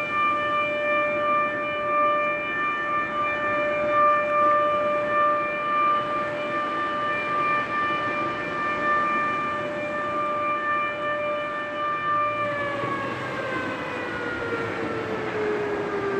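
Siren sounding one steady note, then winding down in pitch after about twelve seconds, over the wash of small waves breaking on the beach.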